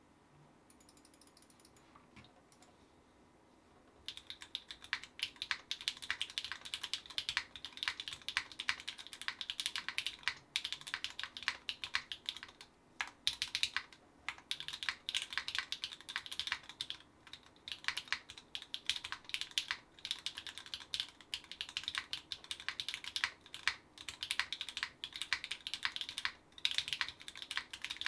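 Rapid continuous typing on an NRD Oku mechanical keyboard with Gateron Deepping 4 mm switches lubed with 205g0, an aluminium plate and GMK keycaps. The keystrokes start about four seconds in after a quiet opening.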